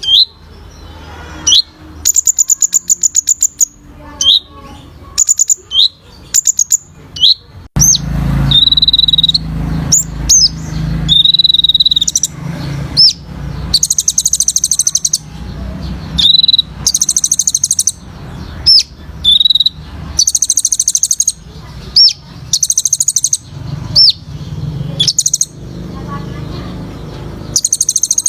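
A sunbird (the 'kolibri ninja' of Indonesian bird keepers) singing in full voice: short, sharp, high whistled notes that flick up and down, alternating with fast, high rattling trills. A low steady hum runs underneath from about a quarter of the way in.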